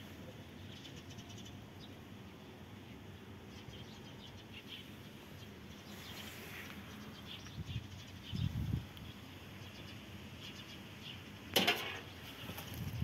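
Quiet outdoor ambience with scattered faint bird chirps. Near the end a single sharp knock as a cat leaps onto curved white shelving, with a couple of soft low thumps a few seconds before it.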